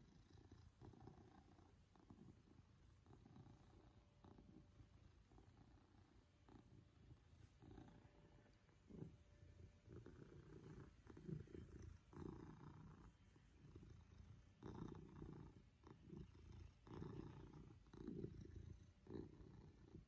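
Maine Coon cat purring contentedly while being stroked, the purr swelling and fading with each breath. It is quiet at first and grows stronger in the second half.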